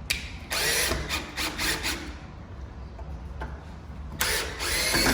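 Cordless drill running in two bursts of about a second and a half each, with a whine that swells and falls, backing out the screws that hold a deadbolt's latch (throw bolt) in the door edge. The second burst comes near the end.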